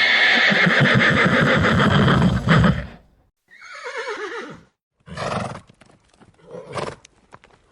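Horse neighing: a loud, rapidly quavering whinny lasting about three seconds, then a shorter call that falls in pitch, followed by two brief bursts of sound.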